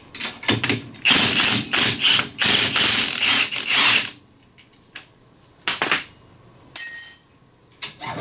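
Cordless impact wrench hammering off the upper ball joint bolt on a Polaris RZR Turbo's front knuckle, in several quick bursts over about four seconds. After it, a couple of metal knocks and a ringing clink of the loosened bolt and tools.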